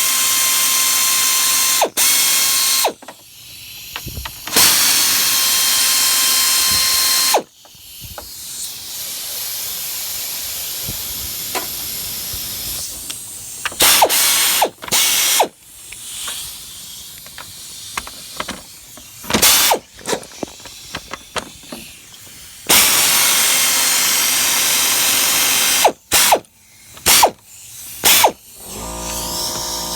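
Cordless power tool running the 10 mm radiator-fan mounting bolts out, in three bursts of a few seconds each with a steady whine, with short clicks and knocks of the tool and parts between the bursts.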